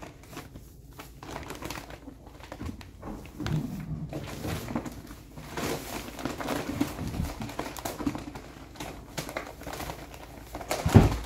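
Paper bag of all-purpose flour rustling and crinkling as it is tipped and shaken, pouring flour into a plastic 5-gallon bucket. There are scattered small knocks and one louder thump near the end.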